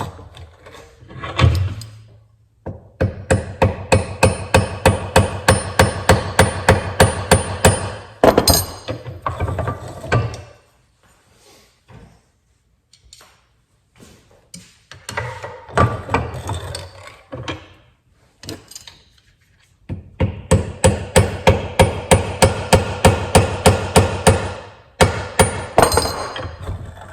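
Hammer tapping rod ends into the ends of steel push-rod tubes, driving a tight, almost press-fit part home. Two long runs of quick, even strikes, about three a second, with a metallic ring, and a few scattered knocks between them.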